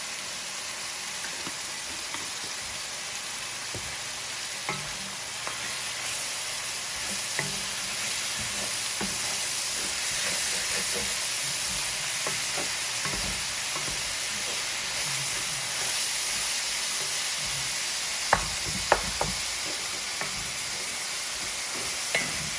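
Ground beef and onions sizzling as they brown in a frying pan, stirred now and then with a utensil that clicks and scrapes against the pan; two sharp taps about three-quarters of the way through.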